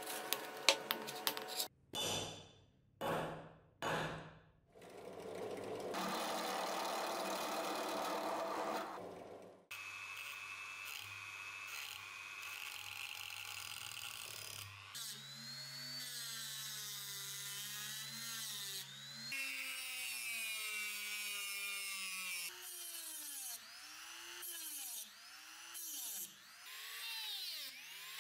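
Dremel rotary tool grinding the steel head of a cleaver-axe. A few sharp clicks and short bursts open it, then the motor whines, its pitch repeatedly dipping and recovering as the bit bears into the metal, in a series of short cuts.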